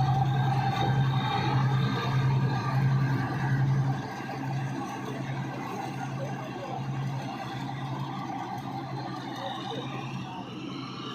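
Wheat-cutting machine running, its engine and cutting gear giving a steady mechanical noise. A louder low hum stops about four seconds in, leaving the machine's noise quieter.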